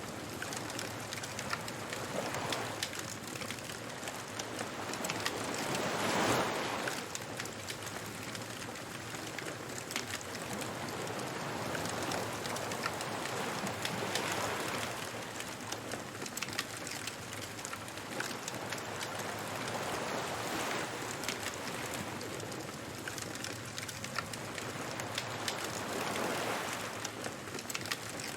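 Waves washing onto a beach, swelling and fading every four to six seconds, the biggest about six seconds in, over a bonfire crackling and popping.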